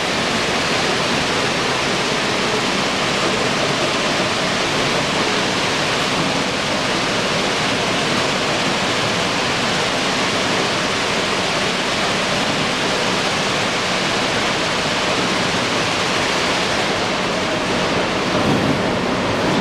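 Open-mouth 50 kg bag filling machine running: a steady, even rushing noise without breaks.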